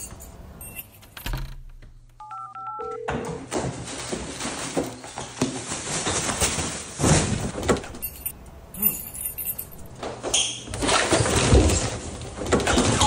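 Electronic door keypad lock beeping: a few quick two-tone key presses and then one longer, lower beep. After that comes a busy run of rapid clattering, knocking and rustling that gets louder near the end.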